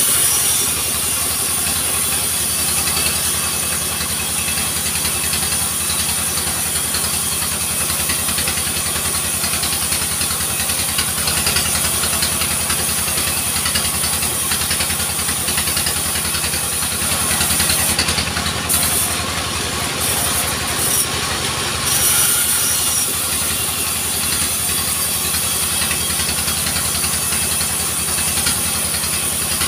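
Engine of a small portable log sawmill running steadily, with a high hiss over it that cuts out briefly about two-thirds of the way through.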